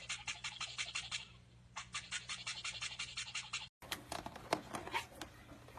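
Toothbrush scrubbing in quick, even strokes, about eight a second, with a short pause. Then sharp, irregular clicks of a parrot's beak nibbling at an electrical cord.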